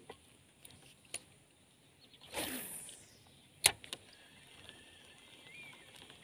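A fishing rod being cast. A swish falls in pitch about two seconds in, and a single sharp click follows about a second later. Faint insects hiss steadily throughout, with one brief bird chirp near the end.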